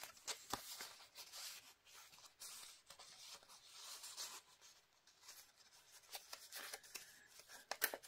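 Faint rustling and soft clicks of paper and card being handled: a paper tag slid into a journal pocket and a card page flap lifted.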